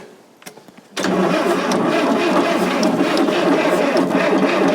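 Fordson Super Major's 3.6 L diesel being cranked by its electric starter, beginning suddenly about a second in and turning over steadily without catching; the men blame a lack of fuel reaching the engine.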